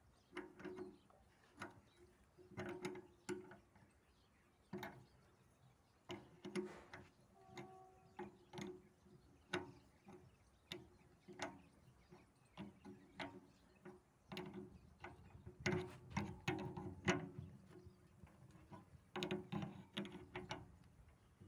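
Steel spanner clicking and clinking against the brass nuts and studs of a transformer's low-tension bushings as the nuts are turned: irregular sharp metallic taps, a few a second with short pauses, thickest in two runs in the second half.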